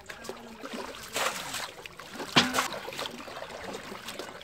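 Water splashing and sloshing as a man swims and dives beside a wooden boat, with a short sharp knock about two and a half seconds in.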